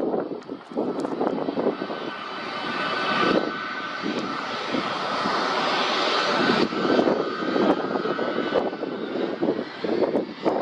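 Airliner engines passing at the airport: a continuous rushing roar with a faint high whine that swells for a few seconds mid-way.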